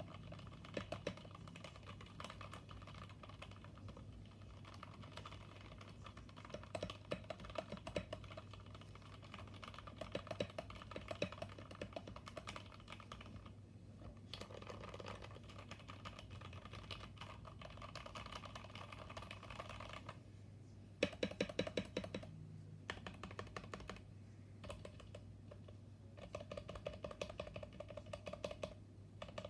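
Typing on a Kemove Shadow mechanical keyboard with lubed switches: continuous runs of keystrokes, with a short pause about twenty seconds in and then a burst of louder key presses.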